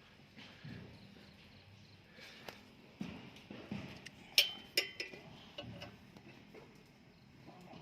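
Metal hand tools and parts being handled: scattered knocks and clicks, with two sharp ringing metal clinks about halfway through.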